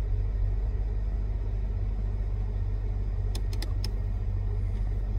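Mercedes-Benz W220 S55 AMG's V8 engine idling, heard from inside the cabin as a steady low hum. A few light clicks come a little past three seconds in.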